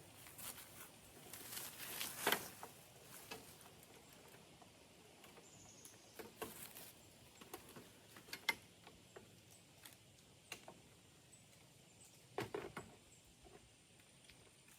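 Faint, scattered snaps and clicks with short bursts of rustling from twigs and leaves being cut and handled during tree trimming. The loudest rustle comes about two seconds in and another near the end.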